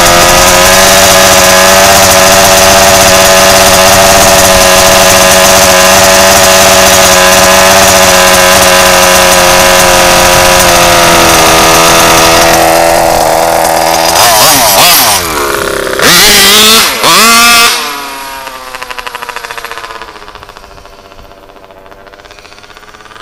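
RCMAX 90cc two-stroke petrol engine of a large-scale HPI Baja RC buggy, heard close up, running loud and steady at high revs through its tuned exhaust pipe. About 14 seconds in it is revved sharply several times. It then drops to a much quieter, more distant drone with slowly falling and rising pitch.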